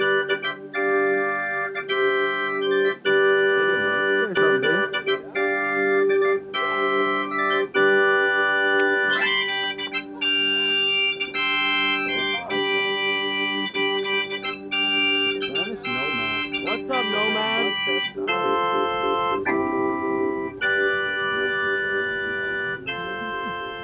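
Organ music: a run of sustained chords changing about once a second over one note held throughout.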